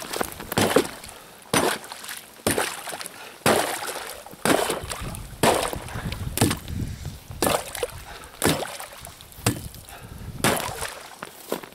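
Hatchet chopping into the ice of an iced-over hole in a frozen lake, breaking up wet ice and slush. It lands a blow about once a second, about a dozen in all.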